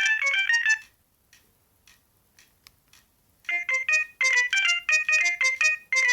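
Alcatel OT-E256 mobile phone playing a polyphonic ringtone melody through its small speaker. The melody stops about a second in. After a short pause with a few faint clicks, another ringtone melody starts about halfway through.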